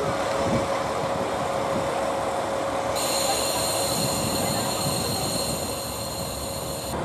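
KiHa 40 series diesel railcar running at the platform with a steady mechanical drone. About three seconds in, a high-pitched steady whine joins it and holds until near the end.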